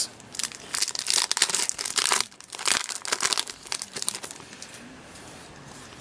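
Foil trading-card pack torn open and its wrapper crinkled in the hands, a dense crackling that stops about four seconds in.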